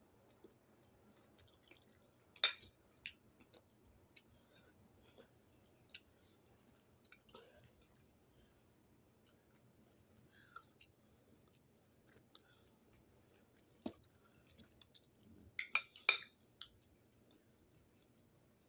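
Person eating: quiet chewing and mouth clicks. One sharper click comes about two and a half seconds in, and a short cluster of louder sounds comes toward the end.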